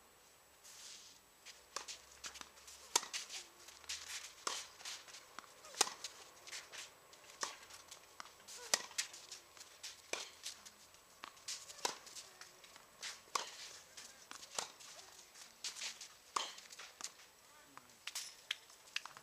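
Tennis ball hit back and forth with rackets in a rally: sharp hits about every one and a half seconds, with lighter ball bounces and clicks between.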